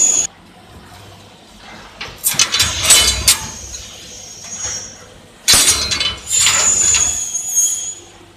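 Cardboard and cut-out cardboard snowflake pieces being handled, rustling and clattering against the metal slat bed of a laser cutter. The noise comes in two bursts, one about two seconds in and a longer one from about halfway to near the end, over a low steady hum.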